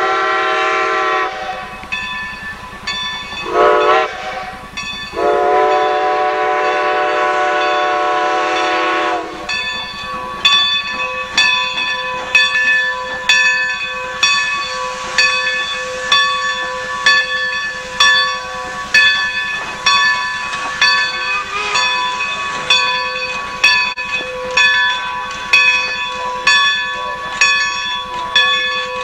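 Steam locomotive whistle sounding a grade-crossing signal: a long blast ending about a second in, a short blast, then a long blast held for about four seconds. After it, a bell rings steadily, about one and a half strokes a second.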